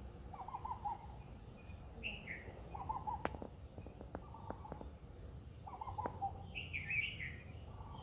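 Birds calling in the background: a short lower warbling phrase and a higher squeaky phrase, recurring every few seconds, with a few faint ticks around the middle.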